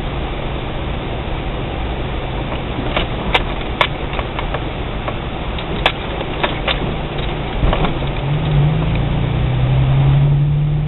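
Suzuki XL-7's engine running steadily while driving over a rough off-road track, heard from inside the cabin, with several sharp knocks and rattles from the bumps in the middle of the stretch. The engine gets louder over the last couple of seconds as it pulls under more load.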